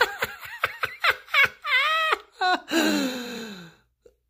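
A person laughing in quick repeated bursts, breaking into high-pitched giggles about two seconds in, then trailing off and fading out near the end.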